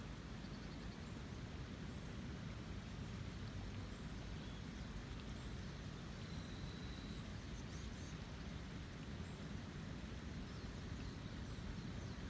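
River in the rainy season running high: a steady, deep rush of water. A faint bird whistle is heard briefly midway.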